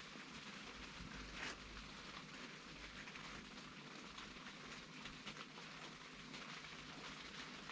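Faint steady hiss with light scattered ticking, and one sharper click about one and a half seconds in.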